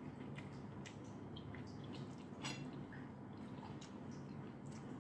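Faint chewing and small wet mouth clicks of a person eating, with one sharper tick about halfway through.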